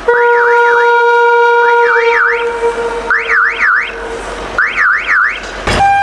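Yellow rail track-maintenance machine sounding its warning: a steady horn tone for about four seconds, with four groups of fast up-and-down warbling, like an electronic siren, laid over it. Near the end another steady horn tone cuts in.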